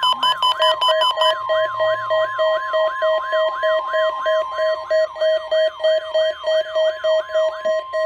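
Several NOAA weather radio receivers sounding their alerts at once: a siren-like tone that falls in pitch about three times a second, over a steady high tone. A second, lower steady tone joins about half a second in, and the high tone cuts off at the end.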